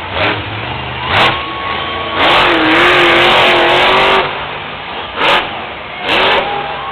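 Monster truck's supercharged V8 revving hard in short blasts, with one longer full-throttle run of about two seconds in the middle.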